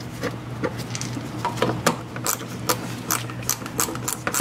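Socket ratchet clicking as it turns out a 10 mm fastener, in short irregular strokes of about two or three clicks a second.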